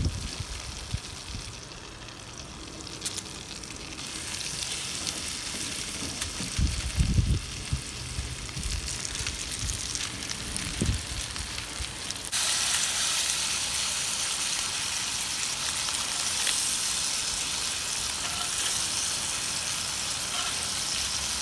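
Sea bass fillets frying in butter in a pan: a steady sizzle that grows louder about four seconds in, then jumps suddenly louder about twelve seconds in, with a few low bumps in between.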